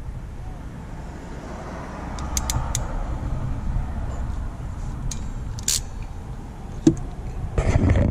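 Close hand work on a red wire and a small crimp connector: low handling rustle, with three quick sharp clicks about two and a half seconds in, a louder click near six seconds, and a brief scuffle near the end.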